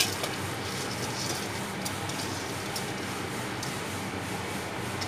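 Steady hiss and bubbling of a pot of boiling water on the stove, with a few light ticks as raw rice grains are poured in from a steel bowl.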